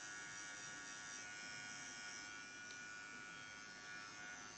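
Electric nail drill (e-file) running steadily with a faint whine, its fine metal bit working along the cuticle and nail fold of a natural nail.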